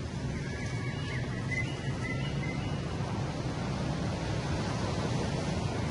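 Steady low rumbling outdoor background noise, with a few faint, short, high chirps about half a second to two and a half seconds in.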